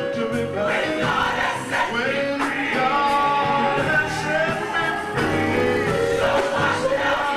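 Live gospel music: a male soloist singing through a handheld microphone, backed by a choir.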